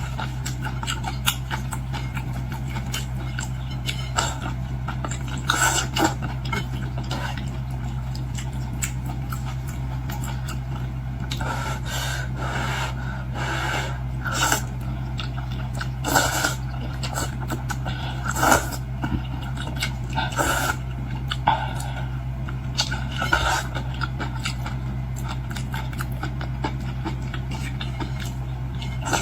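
Close-up eating sounds from a bowl of seafood noodles: irregular chewing, mouth noises and small clicks of utensils against the bowl, over a steady low hum.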